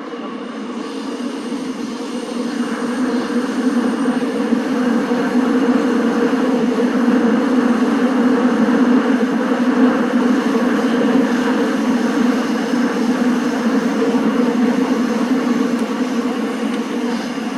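Seoul Subway Line 7 train (SMRT 7000-series car) running between stations, heard from inside the car: a steady rumble of wheels, rails and traction equipment that grows louder over the first several seconds as the train picks up speed, then holds.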